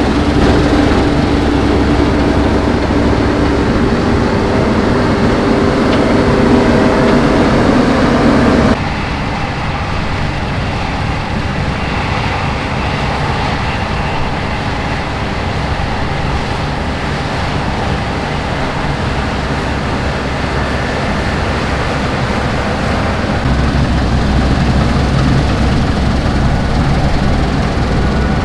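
Heavy harvest machinery running steadily, with an engine hum and machine noise. The sound changes abruptly about nine seconds in and grows louder again near the end.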